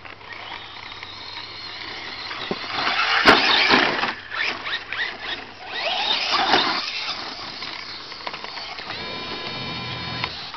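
Traxxas Slash 4x4 RC truck's electric motor and gears whining as it drives and accelerates over grass. The whine rises in two surges, about three and six seconds in, with a sharp click in the first surge. Near the end it settles into a steady high whine.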